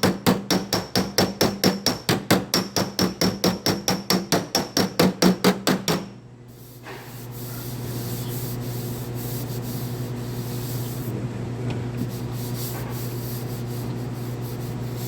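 Body hammer tapping rapidly on a sheet-metal quarter panel, about four or five ringing blows a second, stopping about six seconds in. After that, a steady low hum with a faint hiss.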